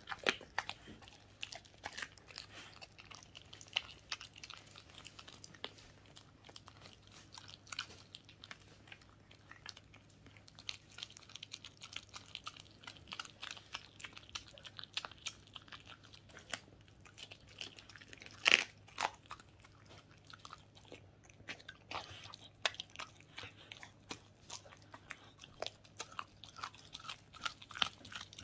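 Welsh corgi chewing and crunching through a whole raw chicken: irregular wet bites and cracks, with one louder crunch about two-thirds of the way through.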